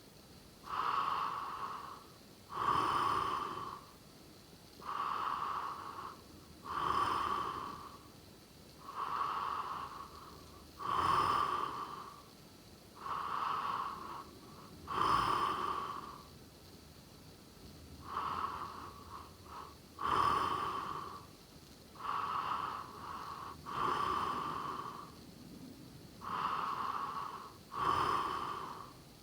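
A sleeping person snoring: a noisy breath about every two seconds, with one broken, stuttering breath about two-thirds of the way through.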